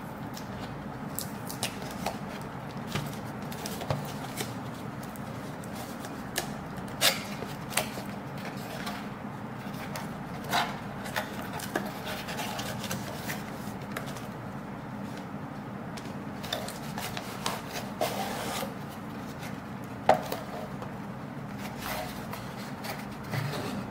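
Hands handling and opening a kraft cardboard box: cardboard rubbing and scraping as the box is turned and its end flap is prised open, with scattered sharp clicks, the sharpest about 7 and 20 seconds in. A faint steady hum runs underneath.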